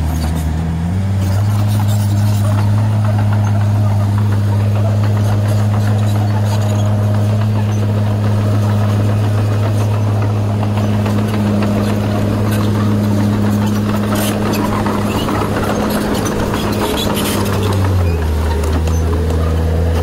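Komatsu D20 bulldozer's diesel engine running steadily under load as it pushes sand. Its pitch rises about a second in and drops back near the end.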